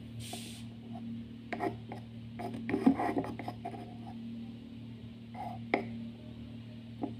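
Small scrapes, taps and rubbing of a stirring stick and the lid on a miniature clay cooking pot, busiest about two to three seconds in, over a steady low hum.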